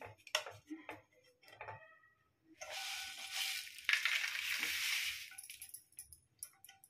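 Dry-roasted red chillies rustling as they slide out of a nonstick pan onto a plate, lasting a couple of seconds from about midway. A few light taps and clicks come before it and near the end.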